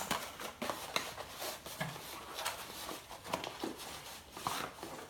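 Cardboard box and packaging being handled as a drink can is worked out of it: irregular rustling, scraping and light knocks.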